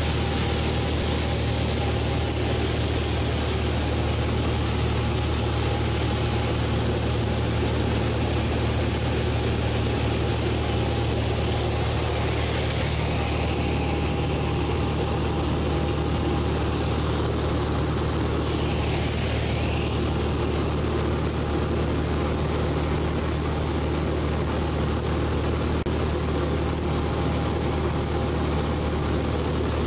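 Cabin noise of a 1957 Cessna 182 in flight: its Continental O-470 six-cylinder engine and propeller droning steadily at a constant power setting.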